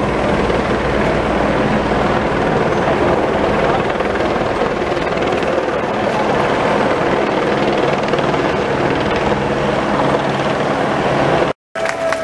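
Helicopter running steadily overhead, a continuous drone, broken off by an abrupt cut near the end.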